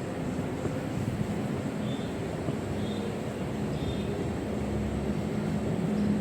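Steady low engine drone, growing slightly louder, with three faint short high chirps about a second apart in the middle.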